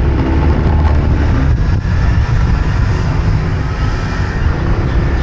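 Heavy wind rumble on the microphone of a camera on a moving vehicle, with road and engine noise underneath.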